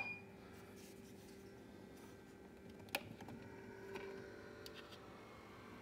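Faint steady hum of a running digital egg incubator, with one sharp light click about three seconds in and a few softer ticks of handling after it.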